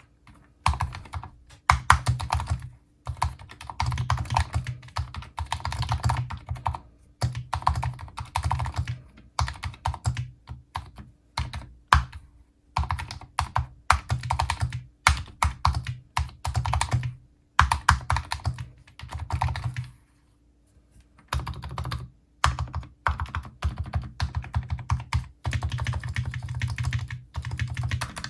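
Typing test on a prebuilt mechanical keyboard with factory case foam, its stabilizers and the sides of its switches lubed without pulling them: quick runs of key clacks in bursts, with short pauses between, and a longer pause about twenty seconds in.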